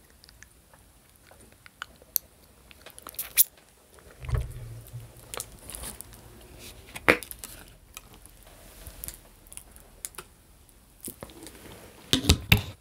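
Close-miked chewing and biting of chicken wings: scattered wet mouth clicks and smacks, thickening into a quick run of bites near the end. About four seconds in, a low closed-mouth hum lasts a second or so.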